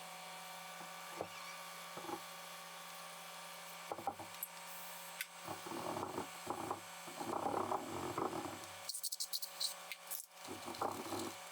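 Scotch-Brite pad scrubbing the top deck of a Toyota 22RE cast iron engine block, in irregular rough strokes from about halfway through and again near the end, with a few light knocks before. A steady low hum runs underneath.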